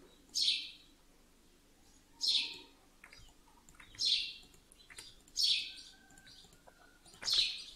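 A bird chirping: five short chirps, each falling in pitch, repeated about every one and a half to two seconds.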